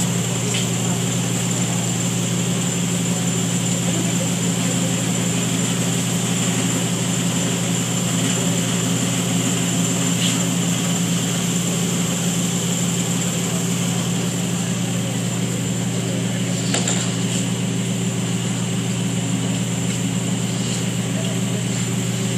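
Steady mechanical hum of a large building's ventilation or air-handling fans, unchanging throughout, with a couple of faint knocks about ten and seventeen seconds in.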